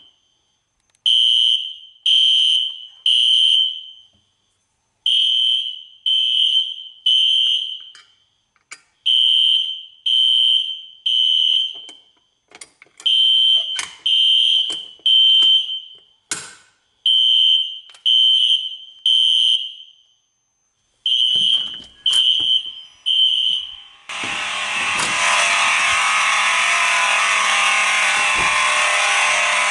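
Fire alarm system sounding the temporal-3 evacuation signal: three high-pitched beeps about a second apart, then a pause, repeated six times. A few sharp clicks fall between the groups. About 24 seconds in, the alarm pattern stops and a steady rushing noise takes over.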